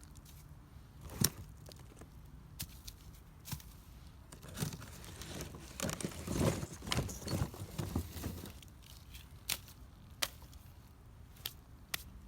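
Dry firewood and kindling at a small wood fire, giving scattered sharp snaps and crackles. About halfway through come several seconds of denser rustling and crinkling, like twigs or paper being handled.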